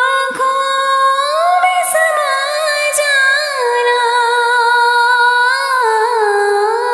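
A woman singing a naat, a devotional hymn, in long held notes with wavering, ornamented turns between them.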